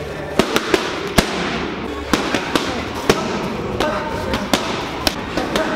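Boxing gloves striking hand-held pads: a run of sharp slaps, often landing in quick pairs or threes of a combination.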